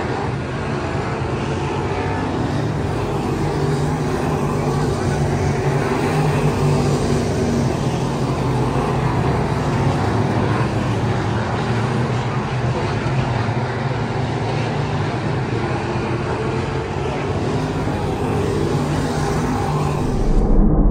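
Race car engines running steadily at speed. Near the end the sound turns suddenly louder and more muffled.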